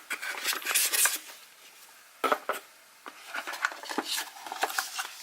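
Hands handling a small plastic thermostat and its packaging: light clicks, taps and rustling in short bursts.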